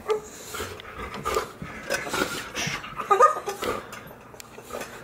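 A dog whining in short bursts.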